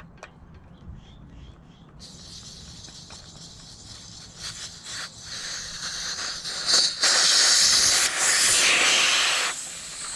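Air hissing out of a dirt bike's rear tire through the open valve stem, its valve core removed, as the tire deflates. The hiss starts about two seconds in, grows loud, and drops back shortly before the end.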